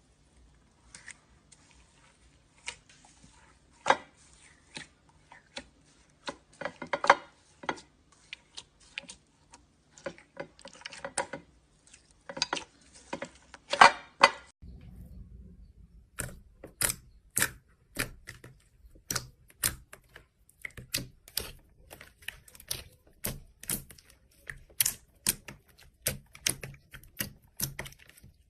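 Slime being pressed and squeezed by hand, giving crisp clicks and crackling pops. About halfway through the sound changes to sharper, more regular clicking, roughly two clicks a second.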